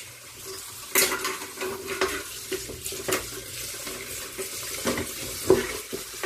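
Dishes and pans being handled at a kitchen sink with water running: scattered clinks and knocks of crockery and metal, the sharpest about a second in, at three seconds and twice near the end.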